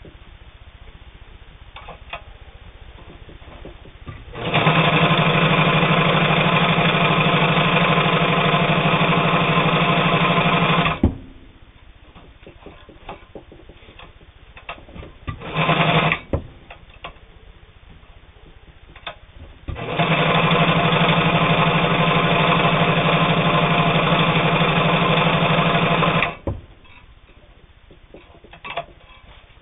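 Brother 1112A steel-geared sewing machine running at speed, stitching through split leather. It runs in two long spells of about six seconds each with a short burst between them, and small handling clicks in the pauses.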